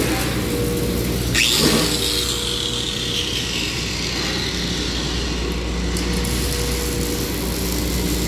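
Fabrication-shop machinery: a steady electrical hum from the welding machines over the crackle of a MIG welding arc. About a second and a half in there is a short loud burst, then a high whine that falls slowly in pitch over a couple of seconds as a power tool winds down.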